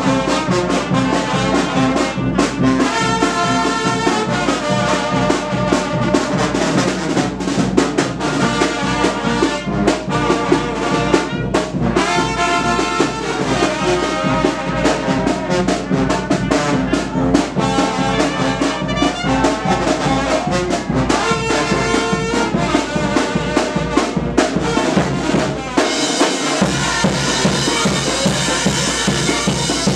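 A brass band with trumpets and trombones playing loudly over a steady drum beat. About 26 seconds in, the sound changes abruptly and drums take the lead.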